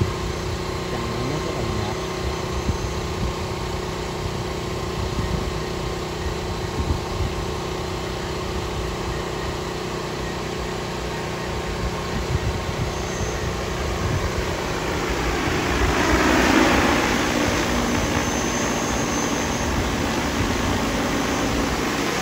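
DJI Agras T30 crop-spraying drone's rotors humming steadily in flight, growing louder as it comes in close and passes overhead about two-thirds of the way through, when a broad rush of air joins the hum.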